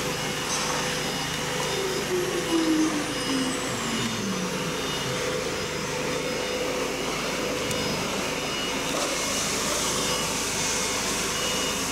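Steady drone of running workshop machinery, with a motor's whine falling in pitch over about three seconds, a couple of seconds in.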